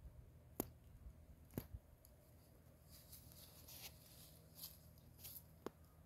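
Near silence, broken by three faint sharp clicks and a few brief soft hisses.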